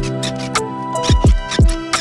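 Background music with deep drum beats, sharp percussion and held notes.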